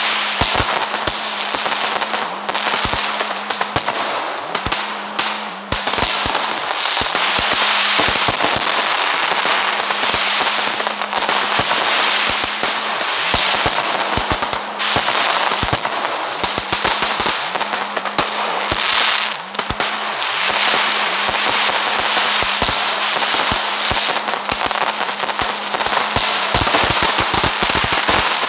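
Fireworks going off continuously: a dense hiss and crackle peppered with many sharp pops, over a steady low hum.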